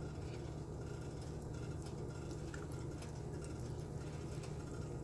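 Butter melting in hot canola oil in a preheated cast-iron skillet, giving a faint crackling sizzle with scattered small ticks, over a steady low hum.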